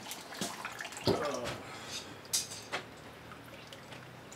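Scattered light clicks and knocks of someone moving about and handling things in a workshop, with a short murmur about a second in.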